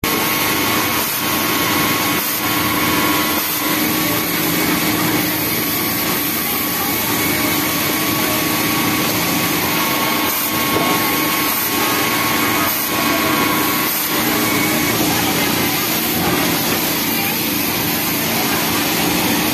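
Industrial sewing machines on a garment factory floor running together, a steady motor whir with a constant hum, among them an overlock machine stitching a knit waistband.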